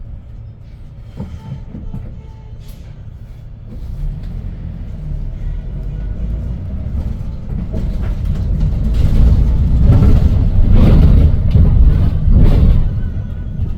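Interior running noise of a 2022 Hyundai New Super Aerocity city bus: its C6AF CNG engine and the rolling rumble of the body and tyres, heard from inside the cabin. It grows steadily louder from about four seconds in and is loudest near the end, as the bus pulls harder under way.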